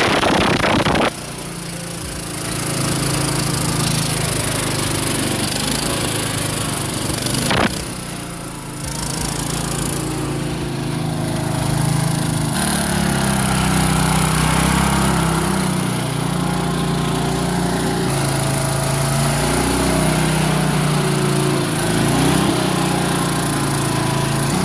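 Craftsman 18.5 HP riding mower engine running on an oversized Honda XR250 motorcycle carburettor, its pitch rising and falling with the throttle as the mower is driven. The sound changes abruptly about a second in and again near 8 seconds.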